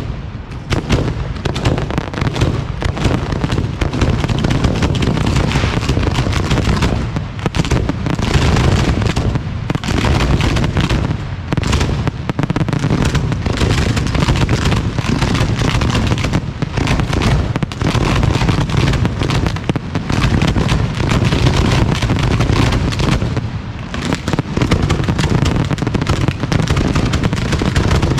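A dense, almost unbroken barrage of 4- to 6-inch aerial firework shells launching and bursting, booms overlapping one after another with only brief lulls.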